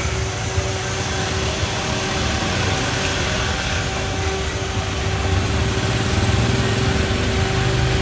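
Street traffic with motor scooters and cars going by, a steady low rumble that swells a little about two-thirds of the way in, with a faint steady hum underneath.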